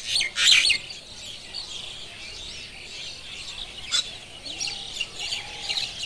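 Birds chirping and calling, with a few loud calls in the first second, then many quick, higher chirps and one short sharp sound about four seconds in.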